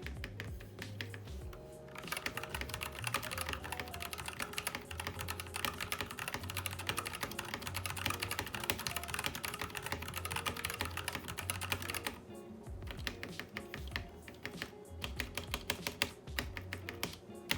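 Typing on a HAVIT KB487L mechanical keyboard with red linear switches, a steel plate and a lubed spacebar: a rapid run of key clacks, densest through the middle and sparser at the start and near the end. Background music plays underneath.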